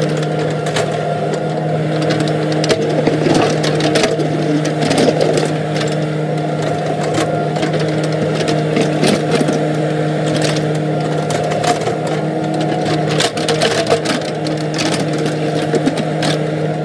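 Cat mini excavator's diesel engine running steadily under digging load, while the bucket scrapes and knocks through dirt and rock with many short clicks and clunks.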